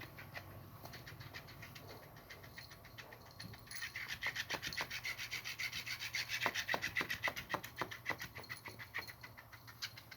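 Electric flopping fish cat toy wiggling its tail, a fast, even rubbing and tapping several times a second that grows louder about four seconds in.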